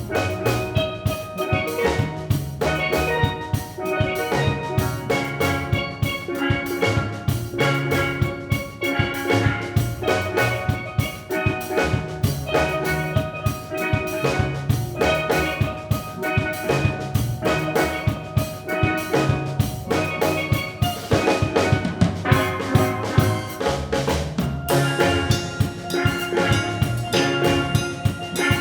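Steel drum ensemble playing a fast, rhythmic tune, many pans striking quick notes together, backed by drums and a bass line.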